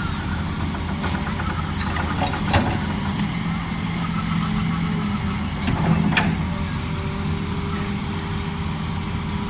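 Hitachi Zaxis 210F hydraulic excavator's diesel engine running steadily, with a few sharp knocks, the loudest about two and a half and six seconds in.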